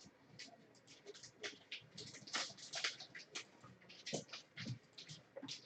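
Faint, irregular rustling and scratching of paper being handled, a run of short scratches and ticks.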